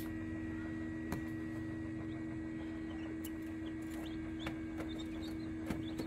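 Egg incubator running with a steady hum, with faint, scattered peeps of newly hatched chicks inside it and a few light clicks.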